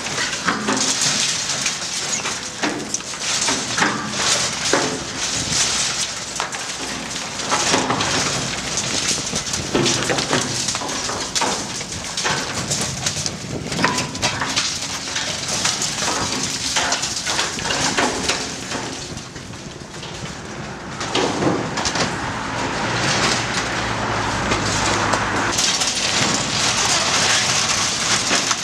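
Cat 314D LCR excavator's hydraulic demolition shear crushing a concrete bridge deck, with broken concrete and rebar clattering and cracking in a dense run of knocks. The excavator's diesel engine hums underneath.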